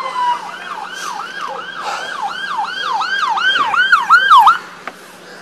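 Police car siren: a wail winding down, then switching to a fast yelp of about three sweeps a second, which cuts off suddenly near the end.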